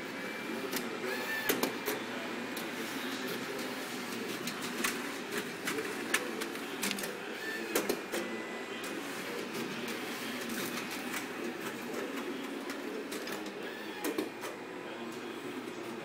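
Duplo DocuCutter 545 paper slitter-cutter running: a steady mechanical whir with frequent irregular clicks as sheets feed through and are cut, and a short high squeak about every six seconds.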